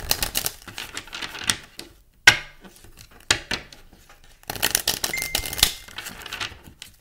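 A tarot deck being riffle-shuffled by hand, the cards rattling in two fast runs of clicks, with a sharp knock about two seconds in between them.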